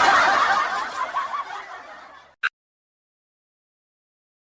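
A group of people laughing together, many voices overlapping, fading away over about two seconds, then cut to dead silence.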